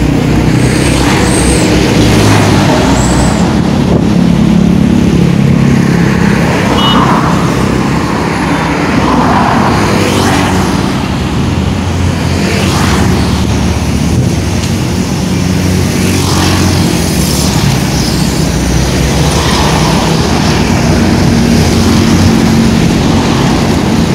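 Loud, continuous road traffic: the low engine rumble and tyre noise of heavy vehicles such as buses and trucks, swelling and fading several times as they pass.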